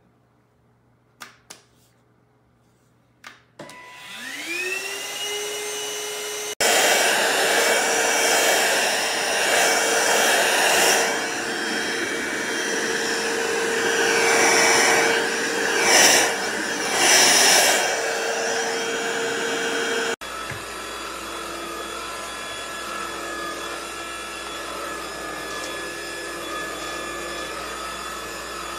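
A few button clicks, then a cordless stick vacuum's motor spinning up with a rising whine and running. About six seconds in the sound jumps abruptly to a louder rush of air and motor, and about twenty seconds in to a quieter steady whine.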